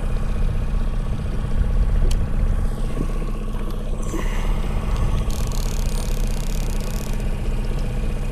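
Boat's outboard motor running steadily at trolling speed, a low even hum. A soft hiss rises over it for about three seconds from around four seconds in.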